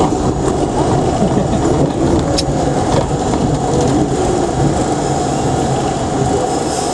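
R32 subway train running along a station platform, heard from inside the car: a steady loud rumble of wheels on rail and traction motors, with a faint sharp click about two and a half seconds in.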